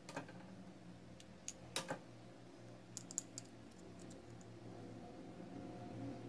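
Light plastic clicks and taps as the parts of a WMF Perfect pressure-cooker handle are handled and fitted together by hand. A few separate clicks, the loudest just before two seconds in, then a quick run of three or four around three seconds.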